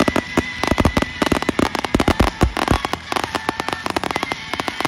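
Aerial fireworks going off in a rapid barrage: many sharp bangs and pops a second, overlapping with crackle from the bursting shells.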